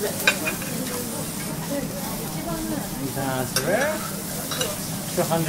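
Wagyu beef sizzling on a hot teppanyaki griddle. Metal spatulas and a knife clink and scrape against the steel plate a few times as the steak is cut and the cubes are moved.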